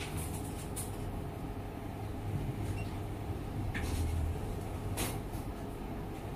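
A steady low rumble with a few short, sharp clicks scattered through it.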